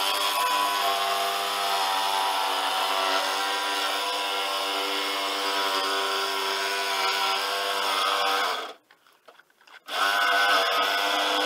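Electric power tool motor running steadily with a whine of constant pitch. It shuts off about nine seconds in and starts again a second later.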